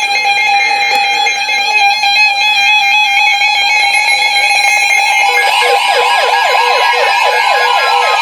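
Several weather alert radios sounding their alarms at once as a new warning comes in: overlapping steady and on-off electronic beep tones. About five seconds in, a fast warbling siren-like alarm joins them.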